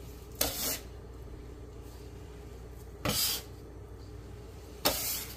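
Metal bench scraper scraping dough and flour across a countertop, three short strokes a couple of seconds apart, over a faint steady hum.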